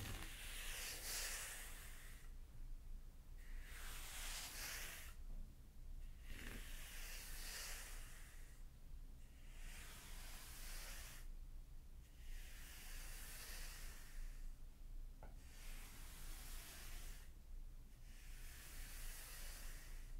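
A comb rake drawn through fine sand, a soft hiss with each stroke, about seven strokes roughly three seconds apart.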